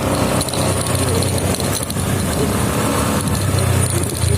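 Honda Vario 125 scooter's engine running, with a light metallic jingling rattle like loose coins mixed into the engine note.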